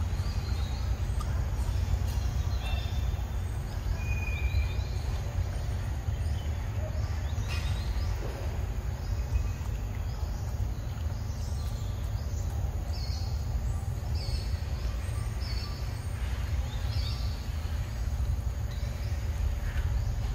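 Outdoor forest ambience: a steady low rumble, with short high bird chirps scattered through, several in a row past the middle.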